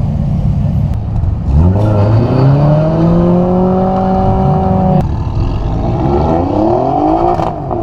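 Drift car engine revving hard: its pitch climbs about a second and a half in and holds high, drops off abruptly about five seconds in, then rises and falls again near the end.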